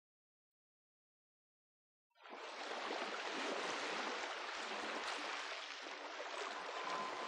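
Silence for about two seconds, then waves washing over the sand at the shoreline cut in suddenly and run on as a steady hiss. A faint steady tone comes in near the end.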